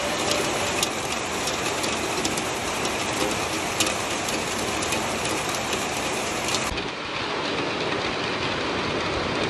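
Heavy rain falling steadily on foliage, with a few sharper drips standing out here and there.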